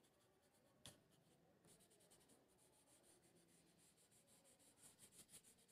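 Very faint scratchy rubbing of folded paper stroked back and forth over charcoal-pencil shading on drawing paper, smudging the shading to blend it. There is a small tick about a second in.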